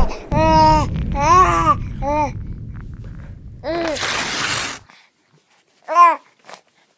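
A baby babbling: several short up-and-down vocal calls in the first two and a half seconds, a longer breathy call about four seconds in, and one last short call near the end. A low thud opens it.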